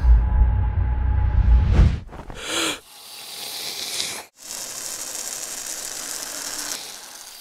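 Film sound effects: a loud, deep rumble that stops about two seconds in, a short whoosh, then a steady hiss that cuts out for a moment about halfway through.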